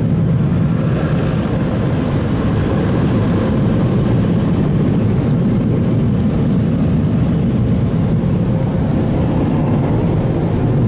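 Belanger air-cannon car wash dryers blowing on the truck, heard from inside the cab: a loud, steady, low rush of air.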